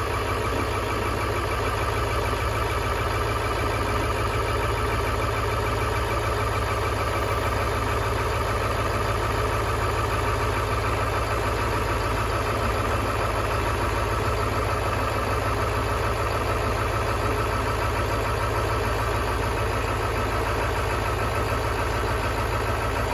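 Ford 7.3-litre Power Stroke V8 turbo-diesel idling steadily after a remote cold start at 9 °F, on 5W-40 oil.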